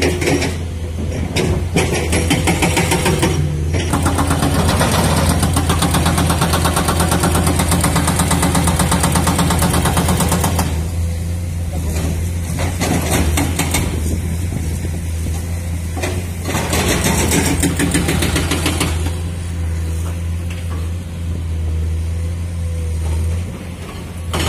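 Excavator's diesel engine running steadily under load, with three louder stretches of rapid rattling and grinding as the machine works the limestone, the longest in the first half.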